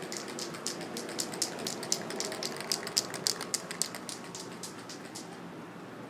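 City street background noise with a rapid, irregular run of light, sharp ticks, several a second, that stops about five seconds in.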